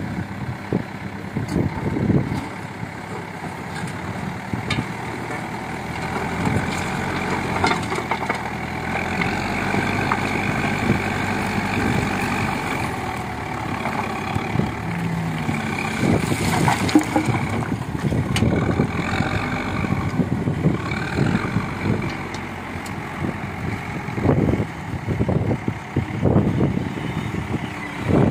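Diesel engine of a CAT backhoe loader running hard, its speed rising and falling, while its crusher bucket takes in and breaks rock. Irregular knocks and crunches of stone come through, thickest around the middle and near the end.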